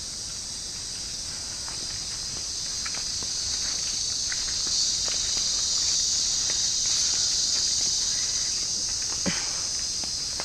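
A steady, high-pitched chorus of insects in tropical forest, growing a little louder around the middle, with scattered footsteps on a dirt trail.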